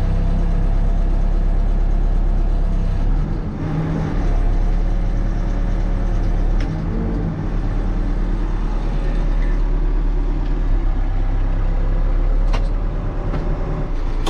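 Heavy diesel engine running steadily, with small changes in pitch and two short sharp knocks, one about six and a half seconds in and one near the end.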